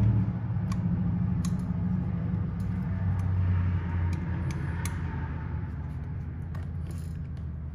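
Light metallic clicks and ticks of a 4 mm hex key working small socket-head screws as they are snugged down by hand, over a steady low hum.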